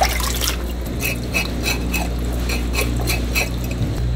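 Knife scraping the scales off yellow croakers on a wooden board, in short even strokes about three a second, after a splash of water at the start. A steady low hum runs underneath.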